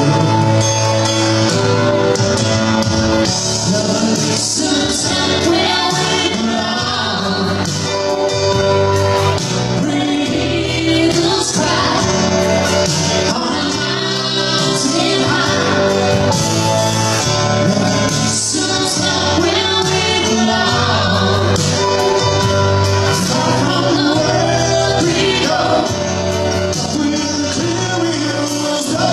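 Live duet of a pop ballad with instrumental accompaniment: a man's voice sings first, and a woman's voice takes over partway through.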